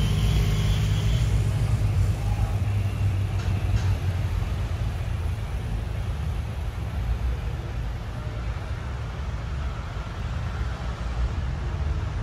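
Road traffic going by: a police motorcycle's engine passing at the start and fading, then cars moving past with a steady low rumble.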